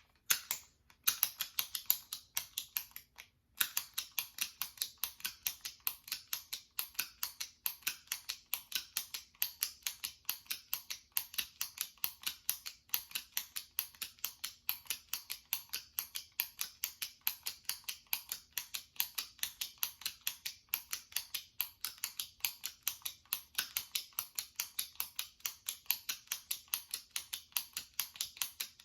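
A jumbo retractable pen's push-button plunger clicked repeatedly in a rapid, even rhythm of several sharp clicks a second. There are two brief pauses in the first few seconds.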